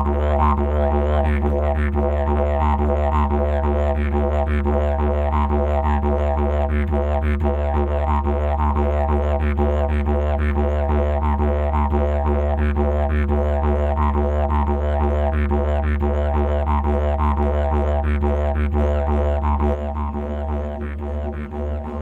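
Background music played on a didgeridoo: a continuous low drone with a rhythmic pulsing pattern over it, the low drone thinning out near the end.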